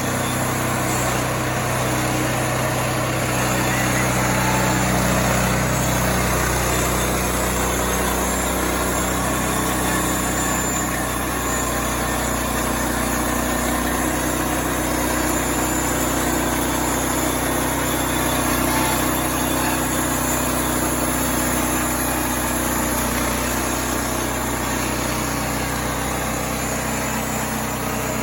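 Engine of a Bozeman band sawmill running steadily. Its pitch shifts a little in the first several seconds and rises near the end.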